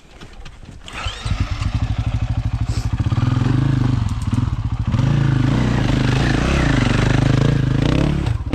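Dirt bike engine coming in about a second in and revving up and down under heavy throttle, louder from about three seconds in, as the rider climbs a steep rocky line.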